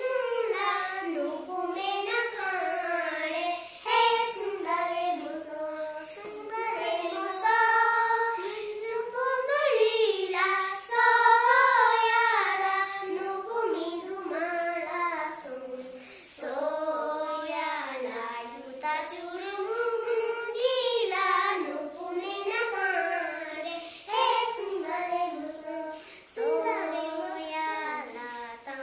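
A small group of young children singing an action song together in unison without accompaniment, in steady melodic phrases with short breaths between them.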